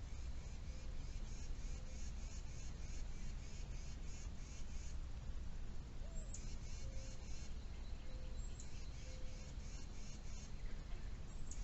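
Birds singing outdoors: repeated high, rapid trilled phrases, several opening with a short falling note, with a few faint lower notes, over a steady low background rumble.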